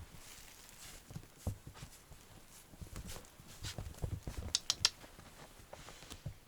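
Small puppy hiccuping: short, soft hiccups at irregular intervals, with a quick run of sharp clicks about two-thirds of the way through.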